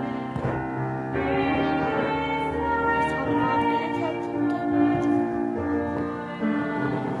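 Instrumental music played on a keyboard instrument: slow, held chords.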